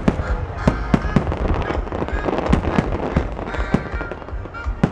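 Aerial fireworks bursting in a rapid, irregular barrage, several sharp bangs a second over a continuous low rumble of booms.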